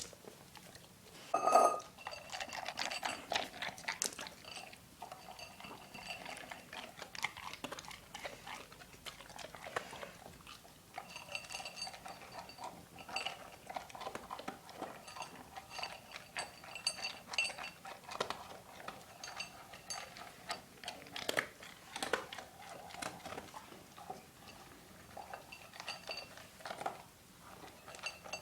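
A dog eating from a food bowl: irregular chewing and crunching, with the bowl clinking and ringing as it is nudged, and one louder knock about a second and a half in.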